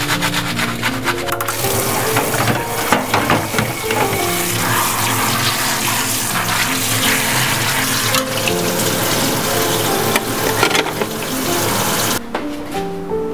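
Tap water running from a pull-out kitchen faucet and spraying over an electric fan's plastic blade as it is rinsed in a stainless steel sink. The water starts about a second and a half in and cuts off suddenly near the end, with soft background music underneath.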